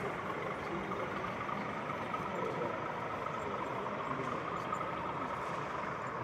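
Steady background hubbub of an exhibition hall: indistinct crowd chatter and general noise, with no one voice standing out.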